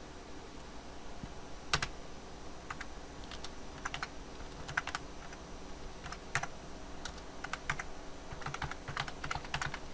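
Typing on a computer keyboard: key clicks in short, irregular runs with pauses between them, one louder click about two seconds in.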